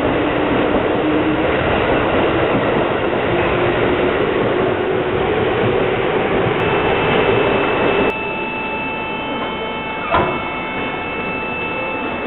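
Yellow Seibu electric commuter train running past the platform, the whine of its traction motors climbing steadily in pitch as it accelerates. About eight seconds in the sound cuts off abruptly to a quieter steady electrical hum from parked trains, with a single sharp clack a couple of seconds later.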